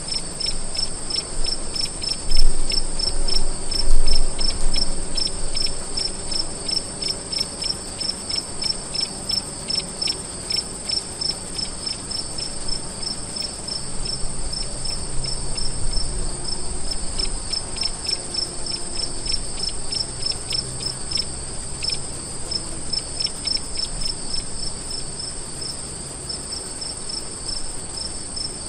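Crickets chirping: a steady high trill alongside a regular pulsed chirping, a few chirps a second. A couple of loud low thumps come about two and four seconds in.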